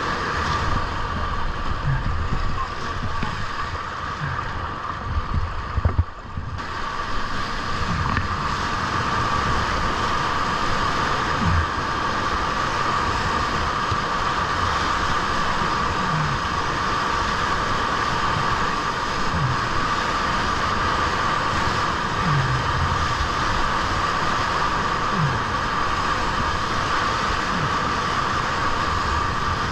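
Whitewater rushing and churning around a kayak surfing a standing river wave, with low thumps every few seconds and a brief drop in loudness about six seconds in.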